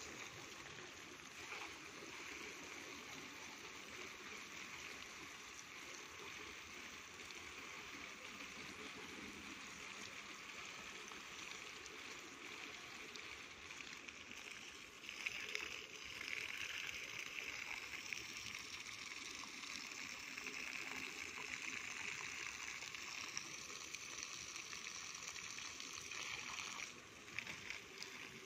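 Water from a hose splashing onto a young mango tree and the ground at its base, a steady splashing that grows louder about halfway through and drops back near the end.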